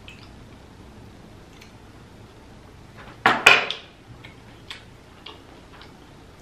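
Close-miked eating of a spoonful of jasmine rice in butter sauce: soft wet mouth clicks while chewing. A little over three seconds in come two loud sharp knocks close together that ring on briefly.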